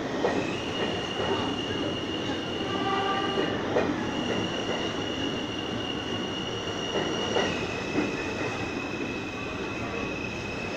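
New York City Subway train running past through an underground station, its wheels giving a steady high squeal that shifts pitch a couple of times. There are a few sharp clacks from the wheels over rail joints, over a continuous rumble.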